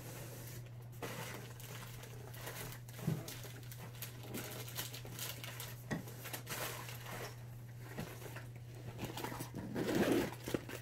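Faint rustling of packaging and a few light knocks as someone rummages through fishing tackle for a soft-plastic bait, over a steady low hum.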